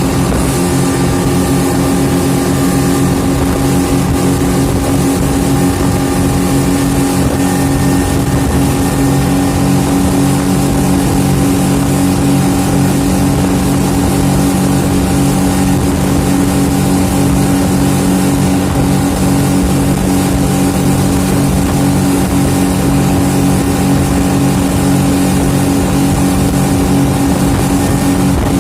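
Boat engine running at a steady speed, a constant drone over an even rushing hiss of water and wind.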